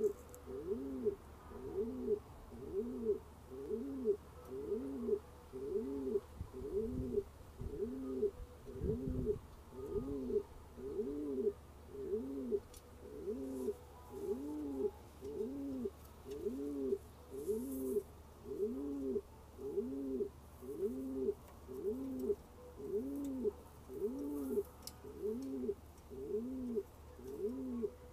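Blue-bar domestic pigeon cooing over and over in a steady rhythm, about one coo a second, each coo a low note that rises and falls.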